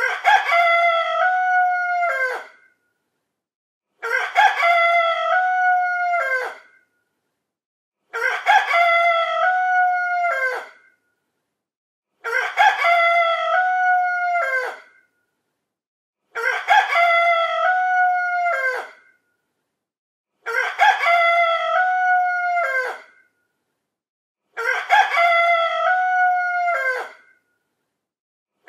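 Rooster crowing cock-a-doodle-doo seven times, about every four seconds. It is the same crow each time, repeated with silence between, and each crow holds its pitch and then drops off at the end.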